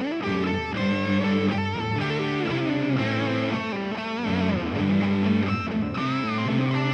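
Instrumental music led by an electric guitar, its lead notes bending and wavering over a steady low backing.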